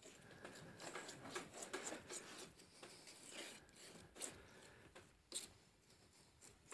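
Thick, oily linseed oil paint being mixed on a board palette: faint, irregular scraping and rubbing, with a few light knocks.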